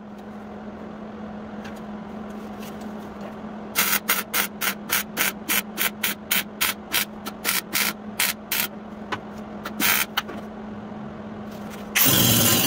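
Sheet-metal shop work on a van's rocker panel: a run of short, evenly paced rasping strokes, about three a second, over a steady low hum. A loud continuous power-tool noise starts near the end.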